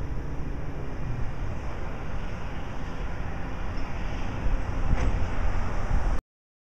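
A heavy truck's engine rumbling as the truck drives by, growing louder about four and a half seconds in. The sound then cuts off abruptly near the end.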